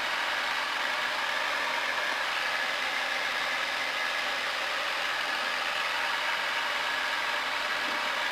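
Piston engine and propeller of a Diamond single-engine trainer running steadily at full power in a go-around climb, heard inside the cockpit.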